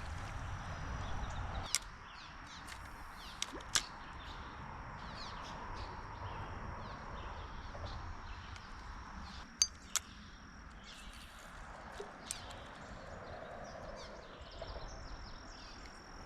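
Quiet riverside outdoor ambience: a faint steady high-pitched tone with scattered small chirps, broken by a few sharp clicks, two of them close together about ten seconds in.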